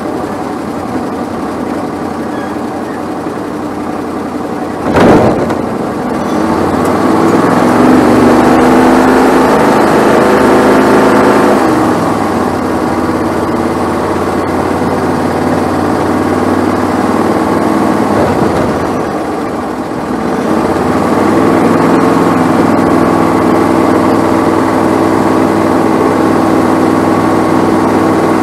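Bandolero race car's Briggs & Stratton 570cc Vanguard engine running at low speed, heard from the car itself, revving up about six seconds in, easing back a few seconds later, then picking up again past the halfway mark. A single sharp knock about five seconds in is the loudest sound.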